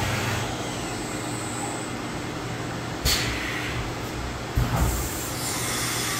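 Syil X7 CNC mill running an automatic tool change: a steady machine hum with one sharp clunk about three seconds in and heavier thuds near five seconds, then a steady hiss toward the end.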